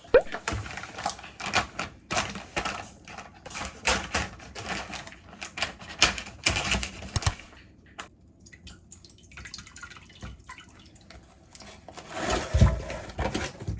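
Rapid, irregular clicking and clattering of small hard objects, dying down in the middle and picking up again near the end with a few dull thuds.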